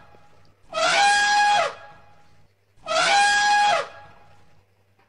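An elephant trumpeting twice, about two seconds apart: the same call each time, about a second long, sweeping up and then holding one high, steady blare.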